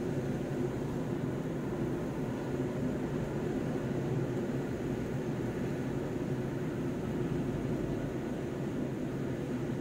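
Steady engine and road noise inside a moving car's cabin: a low, even hum with no sudden events.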